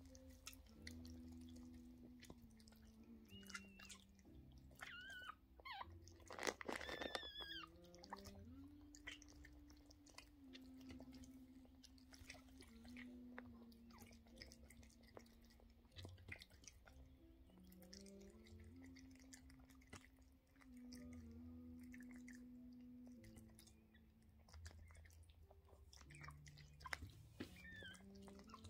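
Faint wet licking and nibbling clicks as a Yorkshire terrier mother licks and bites open the amniotic sac of her newborn puppy. A soft low tone that shifts in pitch every second or two sits underneath, and brief high squeaks come a few seconds in and again near the end.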